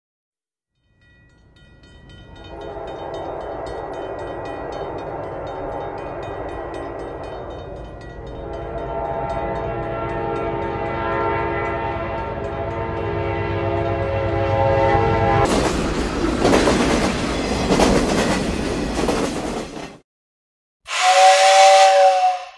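Hornby Dublo 'Duchess of Montrose' model locomotive running on tinplate three-rail track: a steady electric motor whine with wheel rattle that fades in and grows louder, becoming a louder rattle for a few seconds before cutting off. Near the end, a brief loud two-tone whistle.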